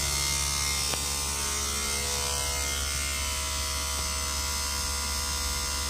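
Steady electrical buzz over a low hum, made of many constant tones, holding at an even level.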